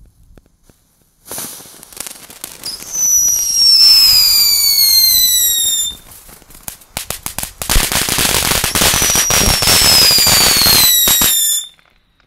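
Two Funke Mini Cuckoo multi-effect firework fountains going off one after the other. Each sprays with a falling whistle over a dense spitting crackle. The second starts after a short lull and stops abruptly about a second before the end.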